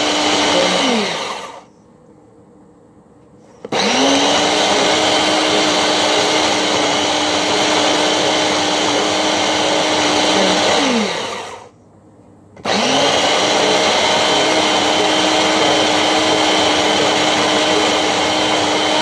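Ninja Ultra Prep food processor motor running in pulses, mixing cookie dough. It winds down about a second in and restarts two seconds later, its pitch rising as it comes up to speed. It runs about seven seconds, stops for about a second, then runs again until it winds down at the end.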